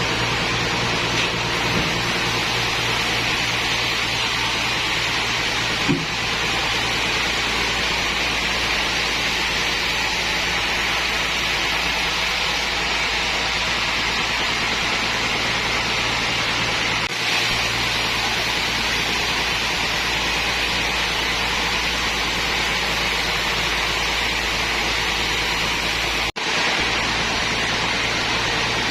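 Sawmill machinery running steadily: a constant, loud mechanical noise with a low hum beneath it, cut off briefly twice.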